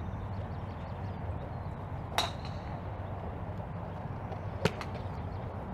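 A golf driver striking a ball off the tee about two seconds in: a sharp crack with a brief ringing ping. A second, louder sharp crack follows about two and a half seconds later.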